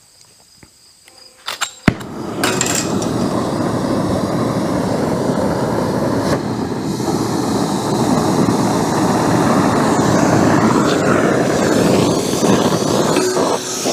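A gas torch is lit with a sharp pop about two seconds in, then its flame runs with a steady loud roar while heating a bent steel mount to straighten it.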